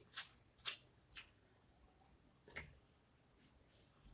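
Eating boiled shrimp by hand: four short, sharp wet smacks and clicks, three in quick succession in the first second and a half and one more a little past halfway, with quiet between.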